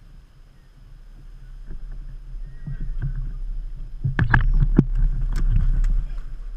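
Gulls moving about and taking off right beside the microphone: a cluster of sharp taps and knocks with heavy flapping about four to six seconds in, over a low rumble that builds and then fades.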